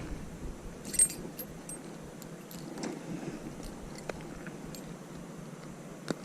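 Faint handling noise: scattered light clicks and jingles, one a little louder about a second in, over a low steady background.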